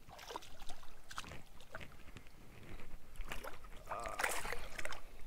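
Water splashing and sloshing in shallow water as a small hooked smallmouth bass thrashes at the surface and is landed by hand, with irregular splashes that are busiest near the end.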